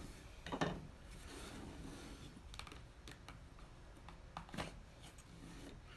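A few light wooden clicks and taps from a hand-made wooden box and its drawer being handled, spaced irregularly over low room noise.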